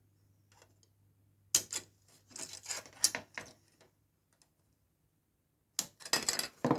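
Sharp clicks and light clatter of small hobby tools and plastic kit parts being handled on a work surface, in a few short flurries, the loudest near the end.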